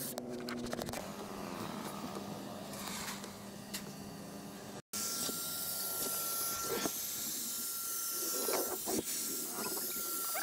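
A steady machine hiss over a low hum. It cuts out for an instant about halfway through and comes back with a thin, steady high whine over the hiss.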